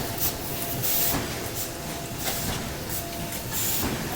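MY-1320E automatic die-cutting machine with its sheet feeder running at production speed: a steady mechanical clatter and hum with a faint steady tone, and short sharp hisses recurring about once a second.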